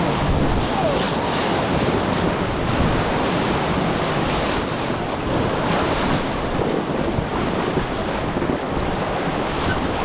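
Whitewater of the Nenana River rushing steadily around a raft running through rapids, with wind buffeting the microphone.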